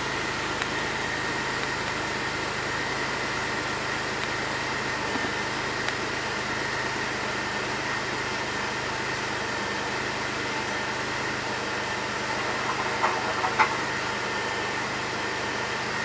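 2002 Pontiac Grand Prix's 3800 Series II 3.8 L V6 idling rough, heard from inside the cabin, with a steady high whine through it that the owner takes for engine strain; the owner describes the idle bogging down about once a second. Two short sharp clicks come about three-quarters of the way in.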